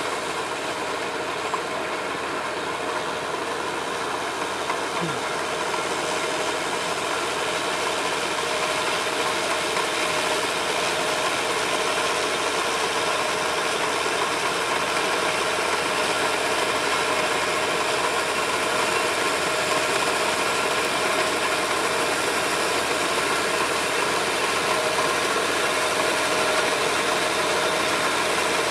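Crawler tractor's engine running steadily with a mechanical rattle, slowly growing louder.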